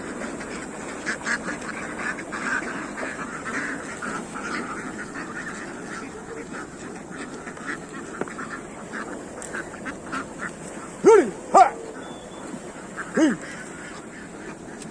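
A flock of ducks quacking continuously in a dense chatter. Three louder calls that rise and fall in pitch stand out: two in quick succession about two-thirds of the way through, then one more shortly after.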